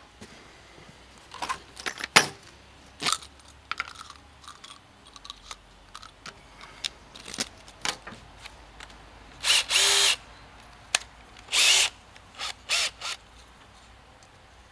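Power drill run in short bursts on the metal anchor plate: two runs of under a second near the middle, then three quick blips. Before them come scattered clicks and knocks of tools being handled.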